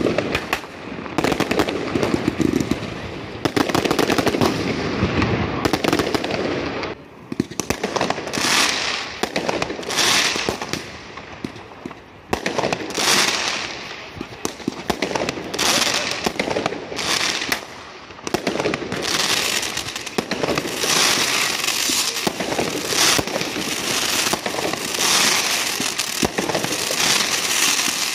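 Fireworks going off: a dense stretch of rapid bangs and crackling for the first several seconds, then a string of hissing shots a second or two apart that thickens again toward the end.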